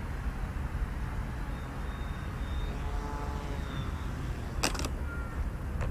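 Wind rumbling on the microphone while the small electric pusher-prop RC plane comes in to land. Its motor and propeller give a faint whine that rises and falls in the middle. A sharp click comes near the end.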